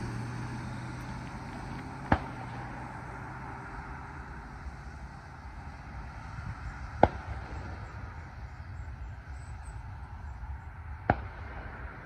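1998 BMW 740iL's V8 running as the car drives away, its sound fading out over the first few seconds and leaving a low, steady rumble. Three sharp clicks stand out, about four to five seconds apart.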